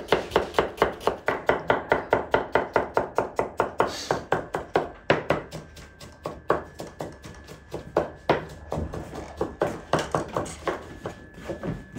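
Knife chopping food on a cutting board in a fast, even rhythm of about five strokes a second, slowing to scattered chops after about four seconds.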